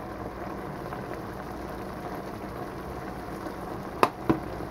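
A pan of tomato sauce simmering with a steady bubbling hiss. Near the end come two sharp knocks a fraction of a second apart.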